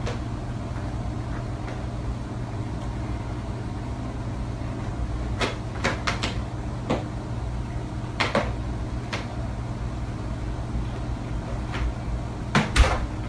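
Steady low room hum with a scattering of short, light knocks and clicks from about five seconds in, as of a cat bumping about among wooden dining chairs under a table.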